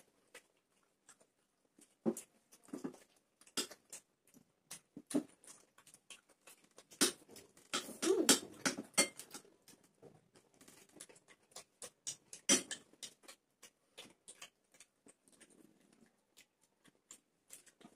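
Close-up eating sounds: irregular wet smacks and clicks from chewing and lips, with naan being torn by hand.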